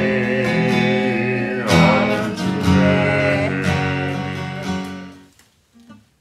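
Acoustic guitar strumming the closing chords of a folk song, with a girl singing the last line of the refrain. The final chord rings and fades out about five seconds in.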